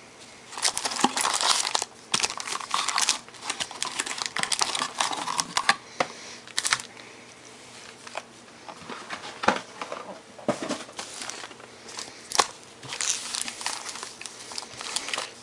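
Foil wrappers of 2012 Panini Prestige football card packs crinkling and crackling as the packs are handled, lifted out of the box and stacked by hand, with irregular sharp clicks throughout.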